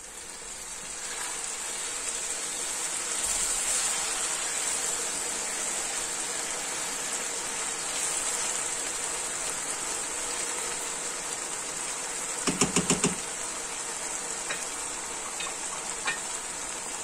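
Rice stuffing for dolma sizzling in a ceramic-coated pan after a glass of water is poured into the sautéed, spiced rice, with a silicone spatula stirring it. About two-thirds through there is a quick run of about five knocks.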